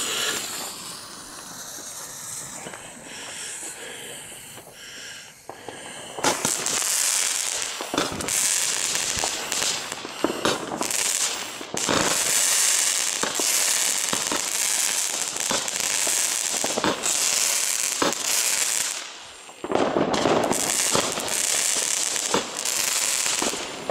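Fuse of a small 19-shot Weco Gold Stars firework battery hissing for about six seconds, then the battery firing: sharp shots one after another, each followed by a loud high hiss from the stars. The shots pause briefly a few seconds before the end, then go on.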